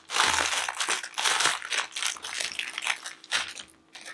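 Clear plastic packaging bag crinkling as it is handled, an irregular crackle that dies down near the end.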